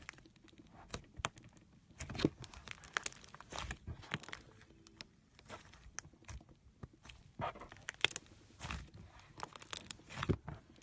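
Slime being squeezed and pressed by hand, giving a run of irregular crackling pops and clicks with a few softer squelches.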